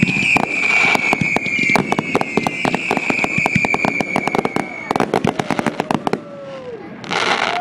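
Aerial fireworks going off in quick succession: many sharp bangs and crackles over a long whistle that falls slightly in pitch and stops about five seconds in. A rapid string of bangs follows, then short falling whistles and a loud hissing burst near the end.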